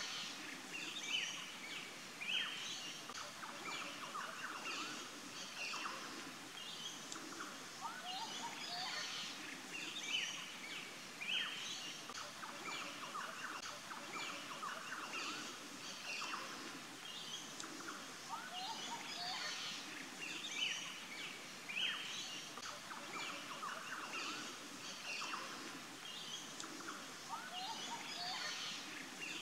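Outdoor chorus of several birds chirping and trilling over a steady background hiss.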